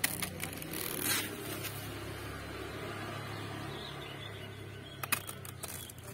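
Knife cutting through taro leaf stalks, with a crunchy cut about a second in and a few sharp snaps about five seconds in, over a steady low hum.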